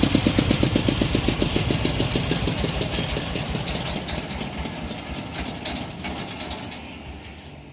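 A corn sheller driven by a 30 HP Dongfeng diesel engine, running with a regular pulsing beat that fades steadily over several seconds. There is one sharp click about three seconds in.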